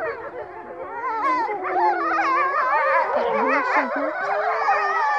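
A pack of grey wolves howling and whining in chorus: many voices overlap, each wavering up and down in pitch, with some yips and whimpers mixed in.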